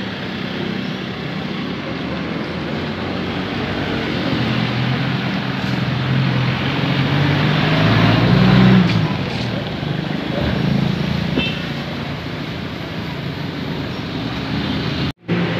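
Street traffic noise: a steady hum of passing vehicles, with one engine swelling louder about eight seconds in and fading again.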